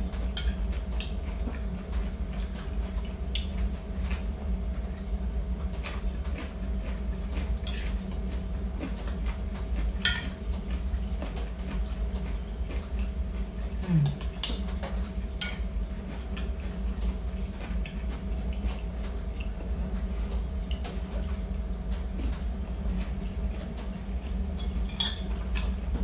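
Spoon and fork clinking now and then against a ceramic bowl and plate while eating, a few sharp clinks standing out, over a steady low hum.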